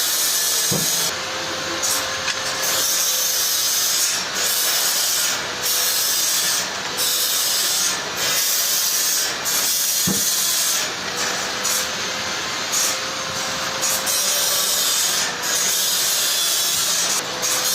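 Sawmill saw cutting through a trembesi log: a steady, loud, hissing cut with a faint hum underneath. Two sharp knocks come through, about a second in and about ten seconds in.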